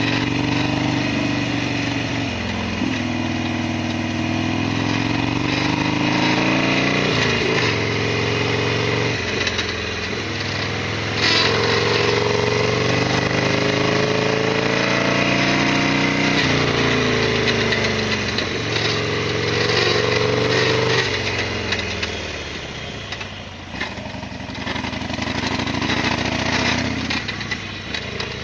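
Harley-Davidson XL1200R Sportster's air-cooled 1200 cc V-twin under way: the engine note climbs in pitch and drops back several times as it pulls through the gears. It eases off about two-thirds of the way through, then picks up again.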